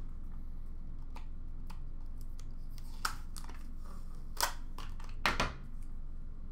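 Trading cards in hard plastic holders being handled among wrappers in a plastic tub: scattered clicks and rustles, the sharpest about three, four and a half and five and a half seconds in, over a steady low hum.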